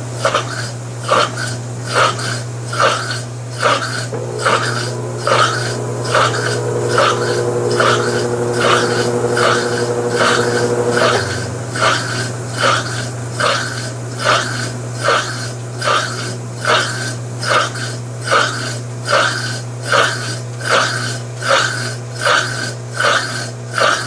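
Consul CWB09AB 9 kg top-load washing machine agitating with no clothes in the tub: a steady motor hum under a regular swish about every 0.7 s as the agitator reverses. For several seconds in the middle a steadier hum with a few held tones joins in.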